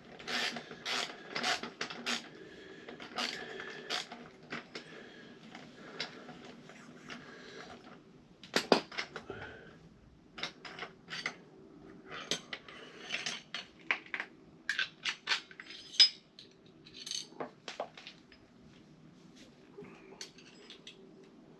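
Metal hand tools and parts clinking and clattering in irregular sharp knocks, the loudest about nine and sixteen seconds in, over a faint steady hum.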